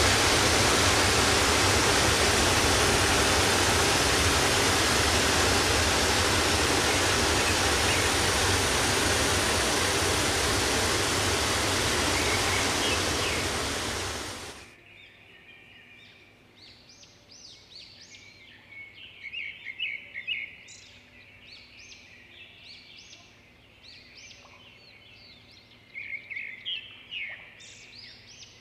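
Steady rushing noise of a tall waterfall, which cuts off suddenly about halfway through. After that, much softer birdsong: many short, high chirps and trills in scattered bursts.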